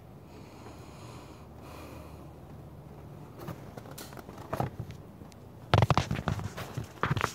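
Paper and a mailing envelope handled close to the microphone. Soft rustling at first, then a few sharp crackles, with a louder burst of crinkling about six seconds in and another near the end.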